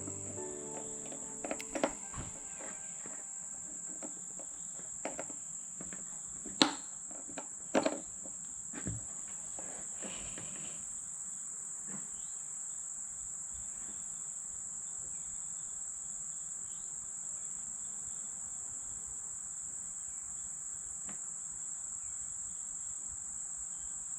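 Steady high-pitched trill of crickets, with a few sharp knocks and clatters in the first nine seconds.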